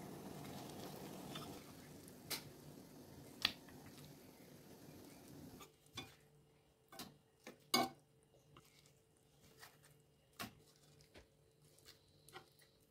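Eggs frying in masala in a nonstick kadai, a soft steady sizzle with a couple of clicks, which cuts off suddenly about six seconds in. Then a metal spatula taps, knocks and scrapes against the pan in scattered strokes as the eggs are cut and turned.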